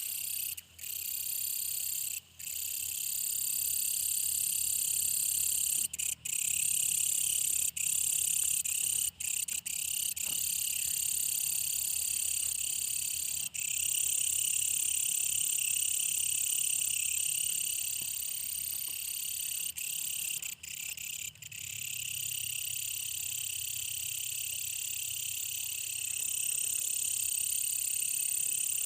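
Brown katydid calling: a loud, high-pitched continuous buzzing stridulation, broken only by a few brief pauses.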